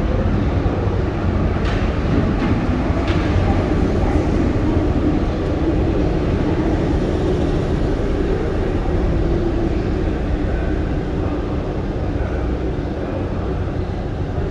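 Paris Métro MF77 train pulling into the station on its steel wheels, a steady loud rumble as it runs in along the platform and slows to a stop, with a few sharp clicks about two to three seconds in.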